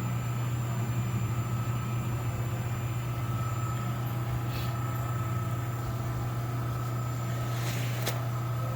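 Steady low hum of running shop machinery, a rotary phase converter powering the air compressor, with a faint steady tone above it. Two faint brief noises come through, one about halfway and one near the end.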